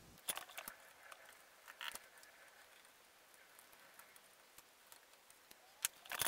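Faint scattered clicks and light handling noises of tools and fingers working inside an amplifier chassis, while a rectifier diode is being removed. A few sharper clicks stand out, the loudest just before the end.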